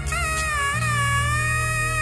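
Instrumental music: a single held melody note that bends and wavers over sustained bass notes, with no singing.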